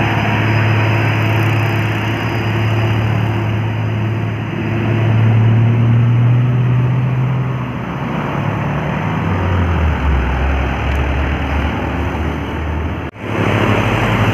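Heavily loaded diesel truck's engine labouring up a steep climb, its low steady note dropping to a lower pitch about ten seconds in. The sound cuts out for an instant near the end.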